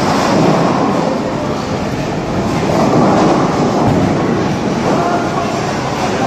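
Bowling balls rolling down the lanes of a bowling alley, a steady rumble with no pin crash.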